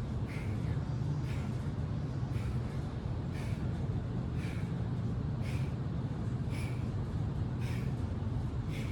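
Sharp exhaled breaths, about one a second, in time with rapid dumbbell push-press reps, over a steady low hum.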